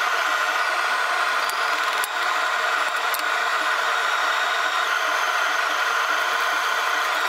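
Forge running steadily: a constant, even rushing noise with no rhythm, while the titanium piece heats between forging rounds. A few faint ticks sound about one and a half, two and three seconds in.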